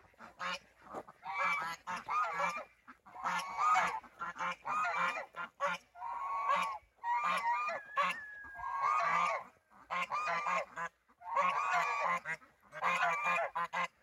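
A gaggle of domestic geese honking, many calls overlapping in short bouts with brief pauses between. The honking is a warning at being followed from behind.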